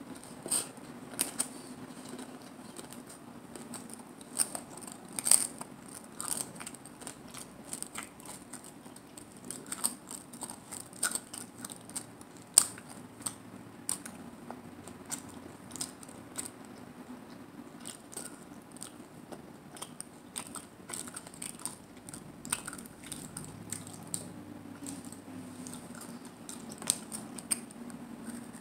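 Close-up chewing of a crunchy hard-shell corn taco, with frequent sharp crackles and crunches at irregular intervals. A faint steady low hum sits underneath.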